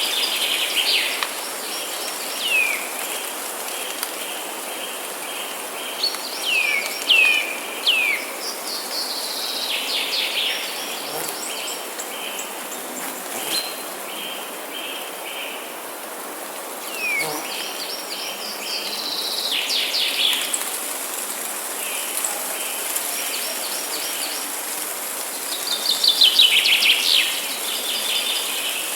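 Forest songbirds calling and singing in bouts: quick downward-sweeping whistled notes and rapid trills, with the loudest burst near the end. A steady hiss and a fainter pulsing chirr run beneath the calls.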